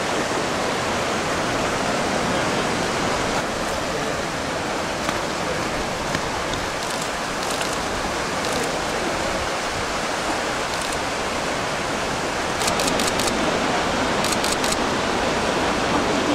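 Steady rushing of flowing water. Near the end come two short runs of quick, faint clicks.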